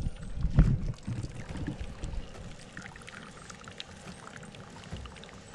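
A deer head being lifted out of a container of soaking water: splashing and sloshing in the first second or so, then water pouring and trickling off it.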